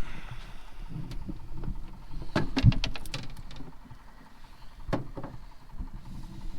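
Knocks and clicking clatter of a landed channel catfish being handled in an aluminium boat. The densest run of sharp clicks and knocks comes a little over two seconds in, with a single knock about five seconds in.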